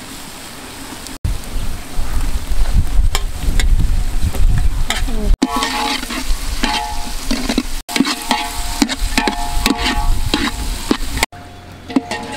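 Chopped vegetables frying in oil in an aluminium pot, stirred with a metal ladle that scrapes and clanks against the pot. The sound breaks off abruptly several times and is quieter for the last second or so.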